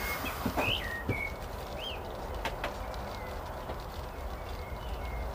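Small birds chirping: several short, high whistled notes, some rising and some falling, most in the first two seconds and fainter ones later. Two light clicks come about two and a half seconds in.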